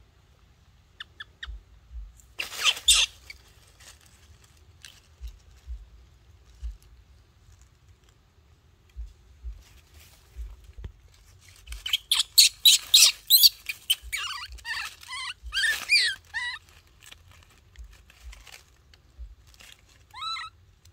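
A baby macaque gives short, high, wavering squeals: one or two early, a rapid run of them past the middle, and one more near the end. Dry leaves rustle and crackle under it, loudest just before the squealing run.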